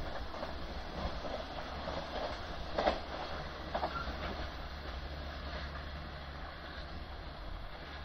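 Container freight train running away on the rails, its wagons rumbling steadily and slowly fading, with a few sharp wheel clacks over the rail joints about three seconds in.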